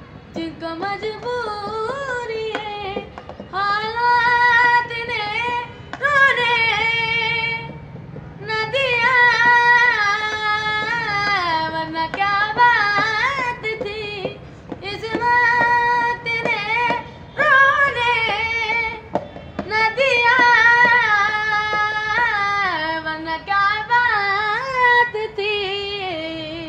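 A boy singing a slow Urdu/Punjabi song in long phrases of held notes that waver and bend, with short breaks between phrases, while tapping a beat with his hands on an orange plastic water-cooler lid used as a drum.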